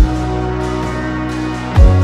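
Background music: held chords over a deep bass drum hit at the start and again near the end, the chord changing with each hit.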